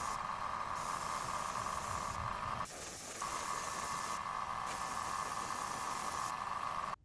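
Airbrush spraying jet black paint, a steady hiss of air that thins briefly a few times and cuts off suddenly near the end.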